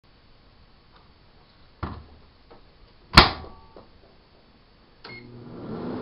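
1978 GE microwave oven: a knock, then the door shut with a loud slam about three seconds in. About five seconds in a switch clicks and the oven starts running with a steady hum.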